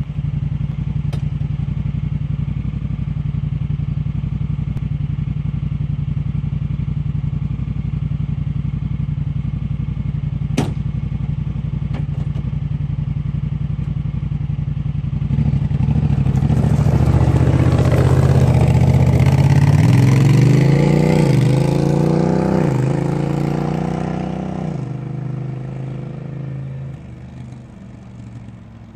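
Honda Pioneer 1000 side-by-side's 999 cc parallel-twin engine running through a loud home-made exhaust with a Cherry Bomb muffler: it idles steadily for about half the time, then revs up with a rising, wavering pitch as it pulls away, and the sound fades near the end.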